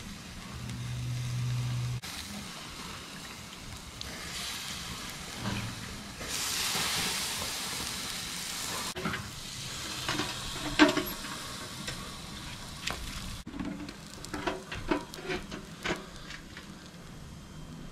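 Goat meat sizzling on a hot barbecue grill, swelling into a loud hiss for a few seconds as salt-water brine drips onto the meat and grill. In the second half, a run of sharp metal clanks and knocks as the barbecue's hood is handled and closed.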